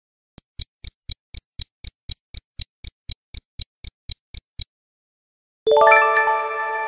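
Quiz countdown sound effect: stopwatch ticking, about four ticks a second for roughly four seconds. It stops, and near the end a bright chime rings out and fades, marking the correct answer.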